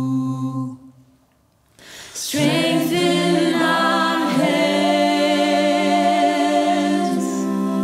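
Church worship music: a held chord stops about a second in, there is a second of near silence, and then voices singing over sustained chords enter and carry on.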